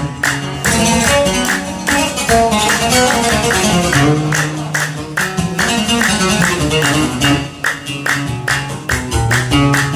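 Instrumental break of a Yemeni song: a plucked-string melody over a steady percussion beat, with no singing.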